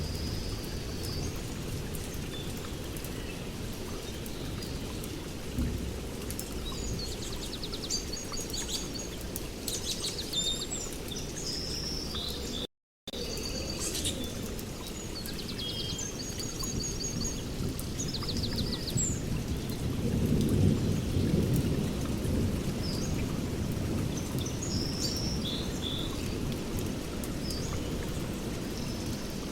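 Heavy rain falling in a forest, a dense steady low rush, with small birds chirping and trilling over it. The low rush swells about twenty seconds in, and the sound cuts out completely for a split second about thirteen seconds in.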